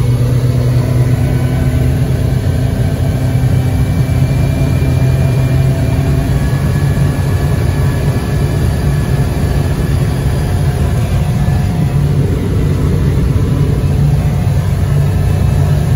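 Outboard motor running steadily at cruising speed, pushing a small boat along.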